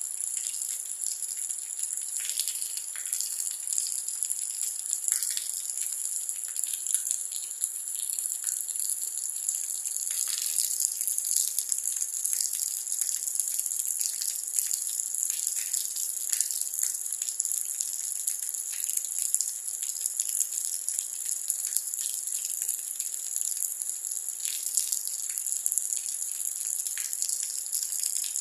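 Rain falling steadily: an even hiss with many separate drops ticking through it.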